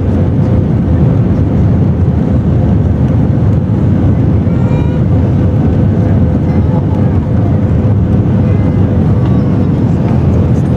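Airbus A319 cabin noise in flight: a steady, loud rush of the jet engines and airflow, with a thin steady hum over it.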